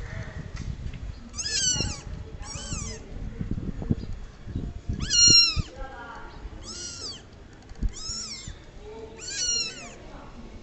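A cat meowing repeatedly: six high-pitched meows, each about half a second long, spaced about a second apart, over low knocks and rumbling.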